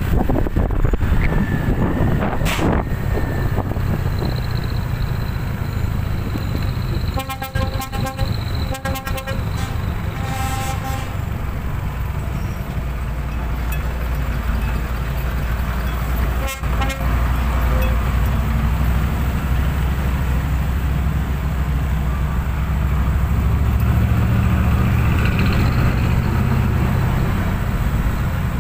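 Heavy diesel trucks running past with a steady low rumble that grows louder near the end. A truck horn sounds in quick repeated toots between about seven and eleven seconds in, and once more briefly a few seconds later.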